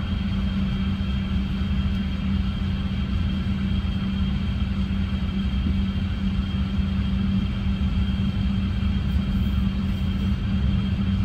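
Steady hum and rumble inside the cabin of an Airbus A350-900, with a low steady tone and a fainter high whine running under it.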